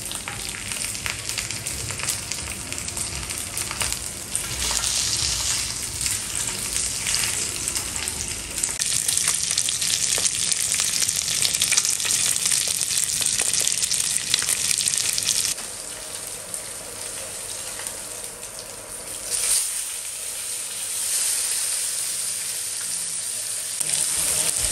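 Sea bream fillet frying in olive oil in a stainless pan, a steady sizzle with fine crackling. It swells a few seconds in, drops suddenly about two-thirds of the way through, then picks up again.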